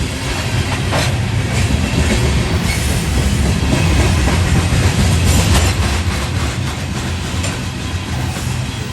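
Freight train's hopper cars rolling past, a steady heavy rumble with wheels clacking over the rail joints and a few sharp clanks.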